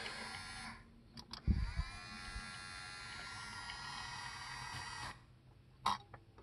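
Electric motor inside an opened RCA SelectaVision video disc player, running with a steady whine. It stops just under a second in and a clunk follows. It then spins up again with a briefly rising whine, runs for about three and a half seconds and cuts off suddenly. Two light clicks come near the end.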